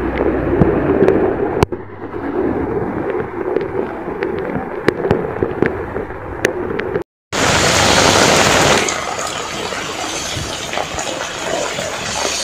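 Heavy rain pouring onto a flooded street, with water rushing and scattered sharp ticks of drops. The sound cuts out briefly about seven seconds in, then returns as a louder, brighter hiss of rain and water for a second or so before settling into a steady downpour.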